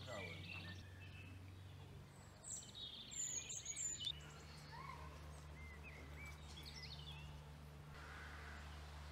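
Wild birds chirping and singing, short scattered calls with a louder run of high trills about three seconds in, over a faint steady low rumble.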